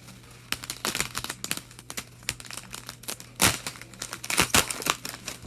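Plastic hockey card pack wrapper being torn open and crinkled by hand: a run of irregular crackles, loudest about halfway through and again near the end.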